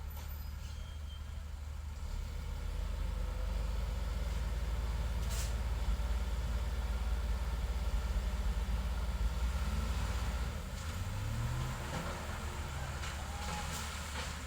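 Heavy road-construction machine's diesel engine running with a deep steady rumble, louder for several seconds, then dropping back and revving up with a rising pitch about eleven seconds in.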